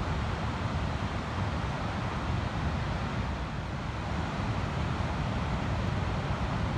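Ocean surf on a sandy beach: a steady, unbroken wash of noise with a strong low rumble, no single wave breaking out above the rest.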